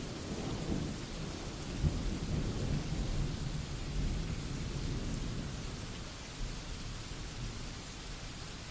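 Steady rain with a low rumble of thunder, slowly fading toward the end.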